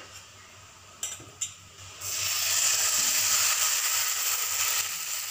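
Cucumber rice-and-lentil batter sizzling as it is poured onto a hot oiled iron griddle (bhida), starting about two seconds in after a couple of light clicks.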